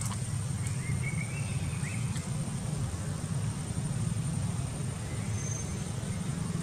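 A steady low rumble, with a few faint short high chirps in the first two seconds and a thin, steady high-pitched whine.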